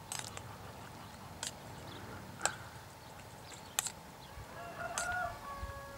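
A spoon stirring corned beef hash in a Trangia pan, knocking against the metal in a few sharp clicks. Near the end a short pitched call or whine sounds over it.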